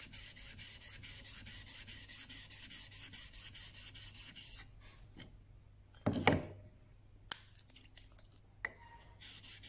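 Steel back of a Marples Gold Chip chisel being lapped flat on a 1200-grit waterstone: quick, even back-and-forth scraping strokes. About four and a half seconds in the strokes stop, leaving a few light ticks and a thump about six seconds in. The scraping starts again near the end.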